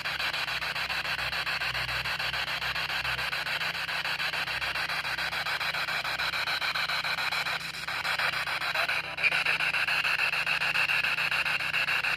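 P-SB7 spirit box sweeping the FM band at a 100 ms sweep rate: steady, rapidly chopped radio static. There is a short drop around eight seconds in, after which the static turns brighter.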